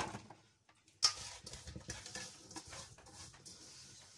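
Seasoned carrot pieces being put by hand into a metal roasting tin: a sharp knock about a second in, then softer handling noises.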